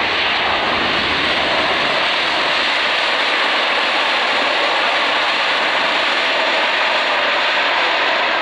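Boeing 787-9's Rolls-Royce Trent 1000 jet engines in reverse thrust on the landing rollout: a loud, steady roar.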